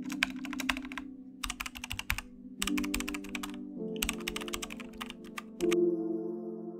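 Rapid keyboard typing sound effect in four bursts of clicks, over sustained ambient music chords that change twice.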